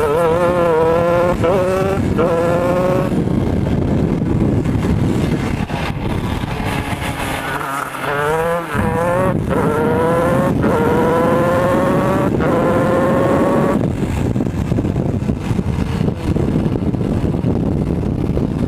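Shifter kart engine at full throttle, its note climbing through the gears and dropping back at each quick upshift. Two such runs, the first near the start and a longer one from about a third of the way in, with a few seconds off the throttle between them.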